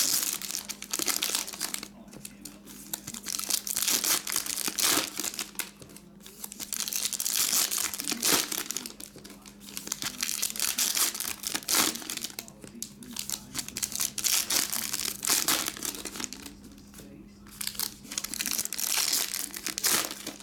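Foil trading-card pack wrappers crinkling and tearing as they are torn open and peeled by hand, in bursts every few seconds with short pauses, over a steady low hum.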